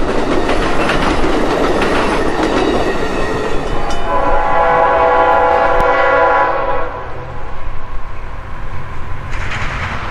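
A passing train's wheels rattle over the rails, then a diesel locomotive horn sounds one long chord for about three seconds. Near the end the rumble of an approaching freight locomotive comes in.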